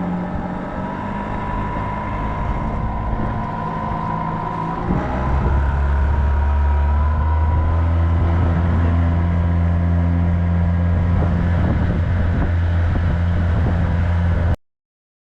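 An engine running steadily, growing louder and deeper about five seconds in, then cutting off suddenly near the end.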